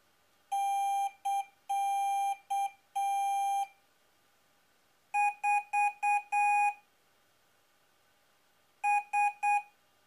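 Electronic beeps from a mini speaker keying Morse code at a steady mid pitch. First comes a long-short-long-short-long query signal. Then comes a quicker reply with a brighter tone: five beeps, the last a little longer, and after a pause three short beeps, the answering microcontroller's address followed by its stored letter.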